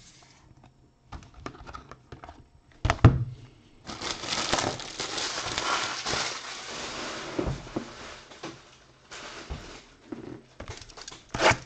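A sharp knock as a trading card in a hard plastic holder is set on its stand, then about five seconds of plastic crinkling and rustling as the next card box and its wrapping are handled.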